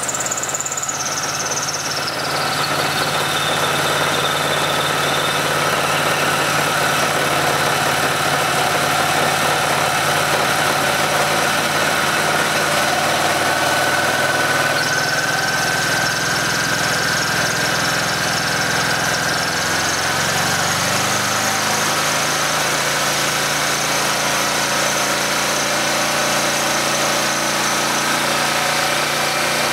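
Portable generator's small engine, run on hydrogen gas with its exhaust recirculated, running with a steady drone. A high whistle falls in pitch over the first few seconds. About 20 seconds in, the engine note shifts as the ports of the recirculation setup are adjusted.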